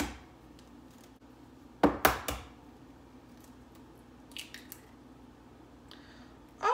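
An egg knocked twice, sharply, against the rim of a mixing bowl to crack it, about two seconds in. A few faint clicks follow as the shell is pulled apart over the bowl.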